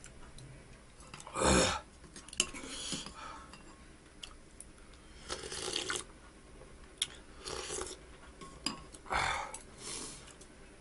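A person slurping ramyeon broth from a spoon, with a loud short slurp about a second and a half in and more sips later, mixed with the light clinks of the metal spoon and chopsticks against the bowl.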